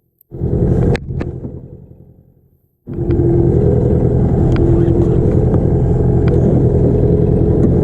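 Small boat's outboard motor running steadily from about three seconds in, a low even drone. Before that, a short burst of the same kind of sound starts abruptly and fades away, with sudden silences either side.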